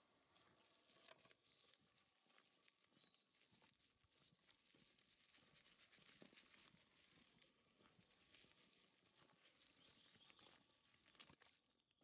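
Faint, continuous crackling and crunching of bicycle tyres rolling over gritty dirt and gravel, made up of many small clicks.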